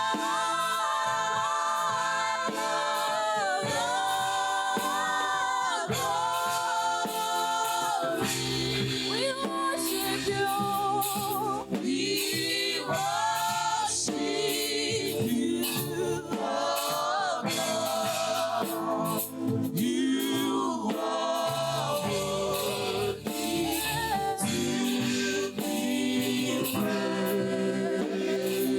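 Church choir singing gospel praise and worship, several voices in harmony. The singing is continuous and stays at an even loudness.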